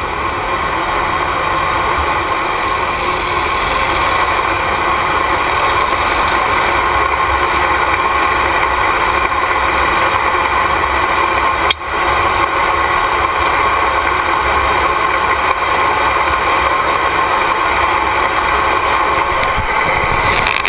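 Engine running steadily at idle, heard from on board a light modified pulling tractor as it is towed behind a farm tractor, with a brief dropout about twelve seconds in.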